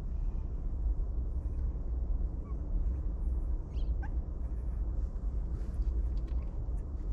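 A couple of short, faint puppy squeaks over a steady low rumble.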